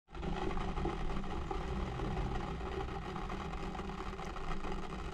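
A steady mechanical hum like a small motor running, starting abruptly and holding even throughout.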